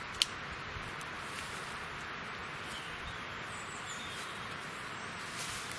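Woodland ambience: a steady background hiss with small birds calling. One sharp, short high call comes about a quarter of a second in, and faint high chirps follow later.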